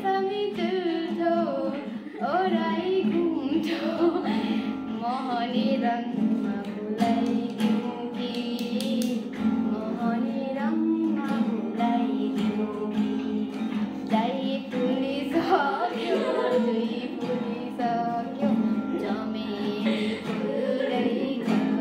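A woman singing a song to her own strummed acoustic guitar accompaniment.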